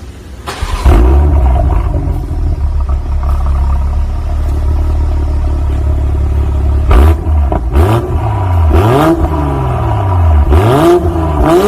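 BMW X7 40i's turbocharged 3.0-litre inline-six, heard through a JUN B.L aftermarket exhaust with electronic valve control, starting up with a flare about a second in and settling to a steady idle. From about seven seconds in it is blipped several times, the revs rising and falling each time, with sharp pops as the throttle closes.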